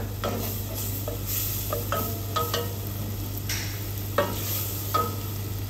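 Diced onion sizzling gently in melted butter in a stainless steel pot as a wooden spoon stirs it, sautéing until translucent, with a few scrapes and taps of the spoon against the pot.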